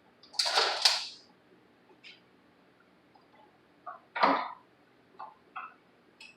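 Handling noises from teardown work: a short scraping clatter about half a second in, another about four seconds in, and a few light clicks and taps between them.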